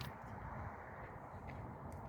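Quiet car-cabin background: a steady low rumble, with a few faint clicks.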